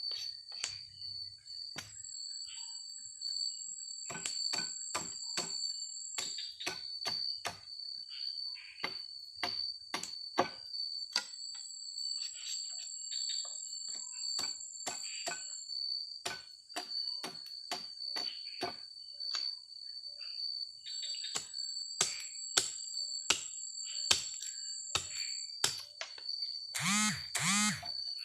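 Forest insects such as crickets trill steadily and high, with a second, higher trill that comes and goes. Sharp clicks and knocks are scattered throughout. Near the end come two short calls that rise and fall in pitch.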